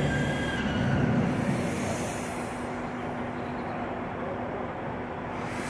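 Steady vehicle noise: a constant low hum under an even rushing noise, without pauses.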